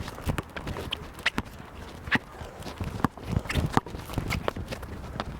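Basketball players running on an outdoor court: quick, irregular footsteps and shoe scuffs mixed with sharp knocks of the ball hitting the court.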